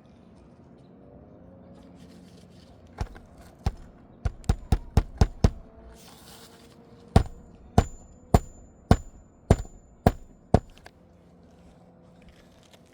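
Hammer blows on a roof shingle: two single strikes, then a quick run of about six, then seven steady blows about half a second apart, with a faint metallic ring.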